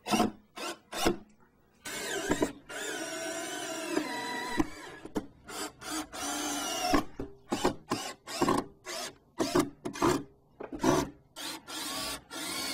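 Power drill driving screws through the jamb shield into the door jamb. The motor comes in short trigger bursts, then in longer runs whose pitch rises and falls as each screw is driven home.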